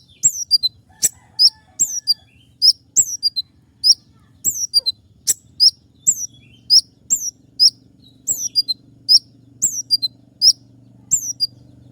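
A sunbird (the 'konin' or 'kolibri ninja' of Indonesian songbird keepers) calling: a steady run of sharp, high chirps, each a quick falling note, about two a second. A faint low hum comes in under the calls about halfway.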